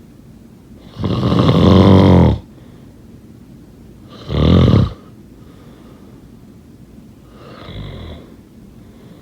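A person snoring: a long, loud snore about a second in, a shorter one around four and a half seconds, and a fainter one near eight seconds.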